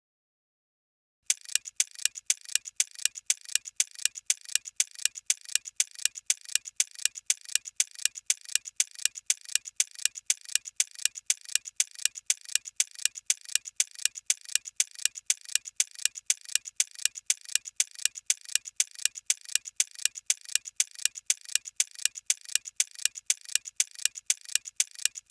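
Clock-ticking sound effect used as a quiz thinking timer. It is a steady, even tick-tock of sharp clicks that alternate louder and softer, starting about a second in.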